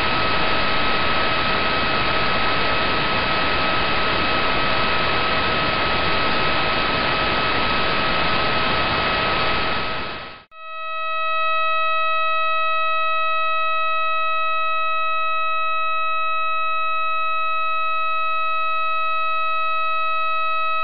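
Radio pulses of the millisecond pulsar PSR B1937+21 turned into sound, 641 pulses a second. First comes a loud hiss with a faint high tone inside it. About ten seconds in it cuts to a clean, steady high-pitched buzzing tone.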